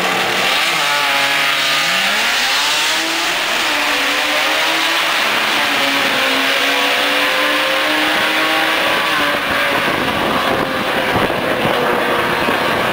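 Drag-race cars launching off the line and accelerating hard down the strip. The engine pitch dips about half a second in, then climbs in a long rise followed by several stepped rises as they shift up through the gears.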